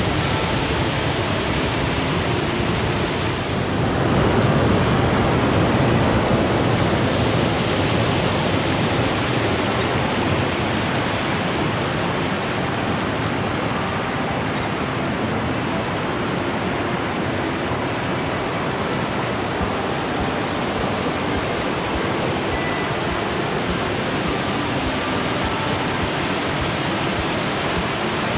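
Water cascading over bedrock in a forest stream: a steady, full rushing noise, a little louder about four seconds in.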